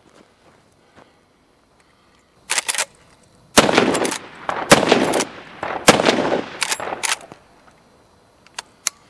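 Marlin Model 30TK lever-action .30-30 carbine fired three times in quick succession, about a second apart, each shot trailing off in an echo. Sharp clicks come before the first shot and after the last.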